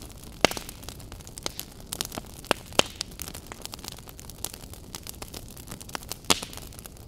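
Wood campfire crackling over a steady hiss, with irregular sharp pops; the loudest come about half a second in, twice near three seconds, and just after six seconds.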